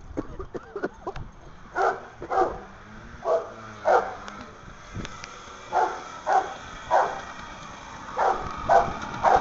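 A dog barking repeatedly, about ten short barks, mostly in pairs.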